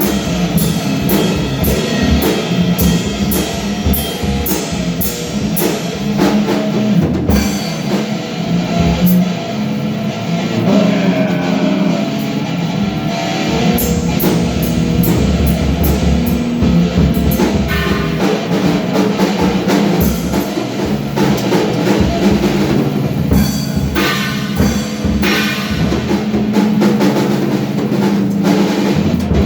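Rock music with a driving drum kit beat.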